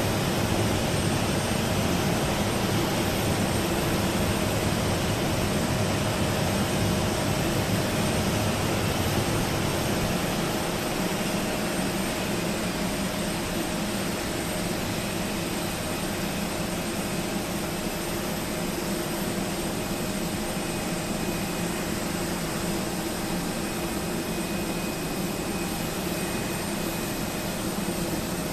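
Steady engine drone and rushing-air noise, with a few faint steady tones running through it; the deep rumble eases a little about ten seconds in.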